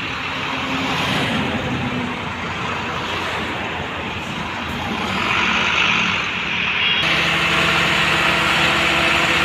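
Eicher tipper truck's diesel engine running while the raised body tips its load of soil out, with a rushing noise over it. About seven seconds in the sound changes abruptly to a steadier engine drone with a clear pitch.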